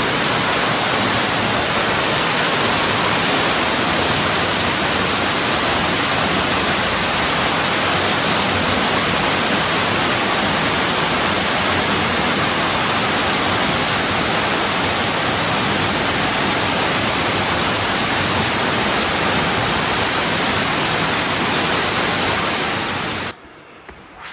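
Waterfall pouring steadily, a dense, even rush of water that cuts off suddenly about a second before the end.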